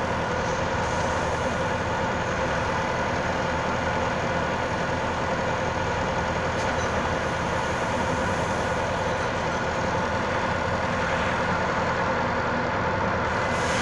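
Skid steer's diesel engine running at a steady speed, an even drone with no change in pitch.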